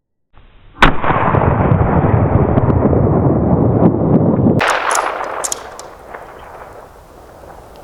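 A single hunting rifle shot about a second in, followed by several seconds of loud rushing noise that cuts off sharply, then a few sharp clicks and a quieter hiss.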